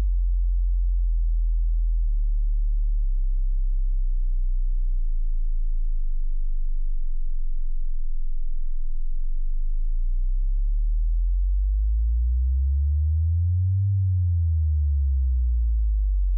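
Deep electronic sine tones. A single bass tone changes pitch in steps about once a second, then from about ten seconds in two tones glide, one rising and one falling, crossing each other.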